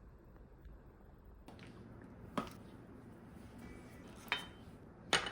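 Three short, sharp knocks over quiet room tone, the last two closer together and the last one the loudest.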